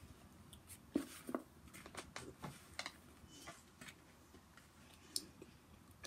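Faint crunching and rustling of popcorn in a plastic bowl: a cluster of small crackles and clicks, loudest about a second in and thinning out after the first half.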